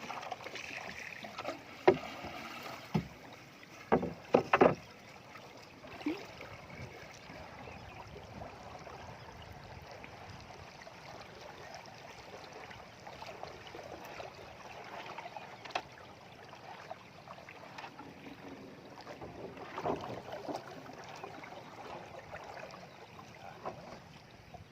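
Small boat on the water with steady water noise around the hull and a few sharp knocks against the boat in the first five seconds.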